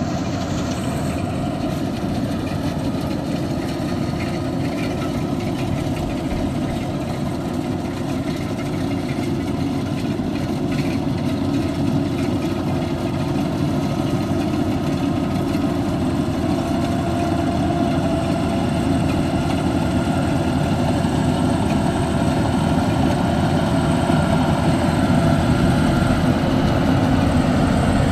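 Rice harvesting machine's engine running steadily, slowly getting louder.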